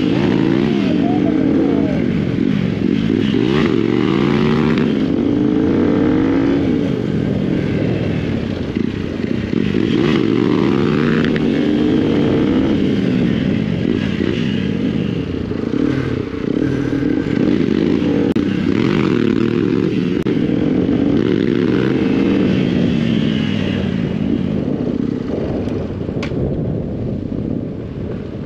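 Motorcycle engine running under way, its pitch rising and falling again and again as the throttle opens and closes.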